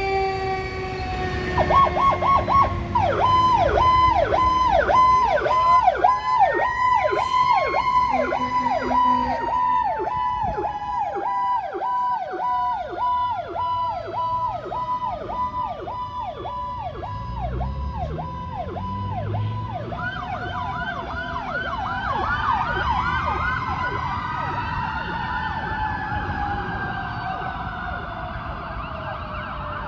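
Sirens of fire and ambulance units responding together. A fast yelp pulses two or three times a second, over slow wails that rise and fall, with a long tone sliding steadily lower in pitch. About two-thirds of the way in, the yelp switches to a higher, quicker pulse.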